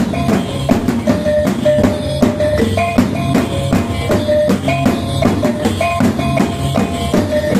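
Dayak kelentangan, a row of small bossed kettle gongs in a wooden rack, struck with sticks in a fast, continuous run of ringing notes, with a small hand drum beating along underneath.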